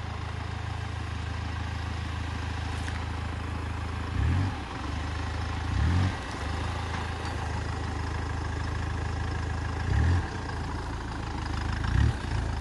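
Hyundai Terracan's engine running low and steady while crawling off-road, with four brief revs as the throttle is pressed and let off.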